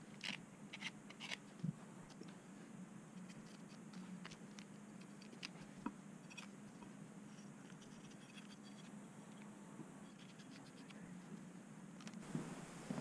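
Faint crackling and scratching of blue painter's tape being pulled from the roll and pressed onto a steel cleaver blade, densest in the first couple of seconds, then a craft knife scoring the tape along the blade's edge to trim it.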